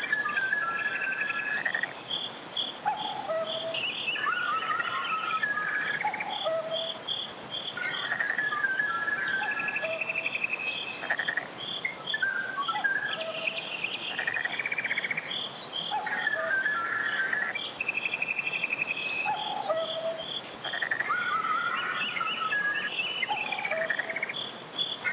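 Valley stream flowing steadily, with birds singing over it. A fast, even chirping, about three to four a second, runs throughout.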